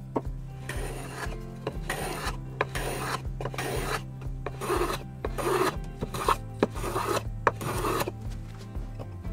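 A small wooden hand plane shaving the edge of a wooden hinge piece. It makes about ten short, rasping strokes, one roughly every two-thirds of a second, each peeling off a curl of shaving.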